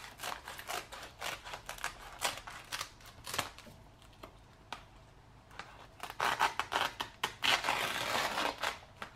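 Scissors snipping through a woven plastic feed bag in a run of short cuts, with the stiff plastic crackling. The cutting and crackling get louder and denser over the last three seconds or so.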